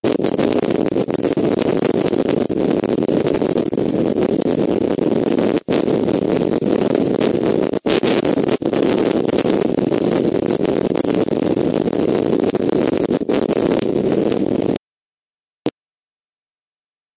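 Loud, steady rushing noise with no tone or rhythm, broken by a few brief dropouts, that cuts off suddenly near the end, followed by a single short click.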